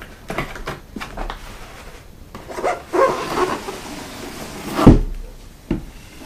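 Cardboard packaging being handled: box flaps knocked open, then the outer box slid up off a foam drone case, cardboard rubbing on foam with a scraping hiss. A loud thud about five seconds in, and a lighter knock shortly after.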